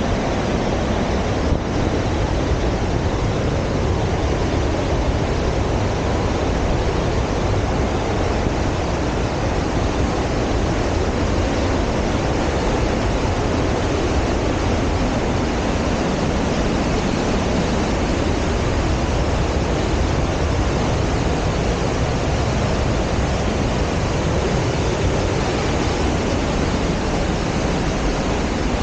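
Steady rushing of a mountain creek and its waterfall in a narrow rock gorge, an even, unbroken wash of water noise.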